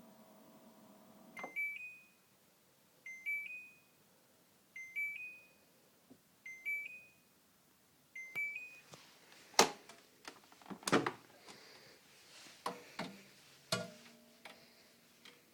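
Daewoo DWDM301WP washing machine finishing its programme: a faint hum stops about a second in, then the machine plays a short rising three-note beep five times, about one and a half seconds apart, the end-of-cycle signal. Then come a run of sharp clicks and knocks, the loudest about ten seconds in.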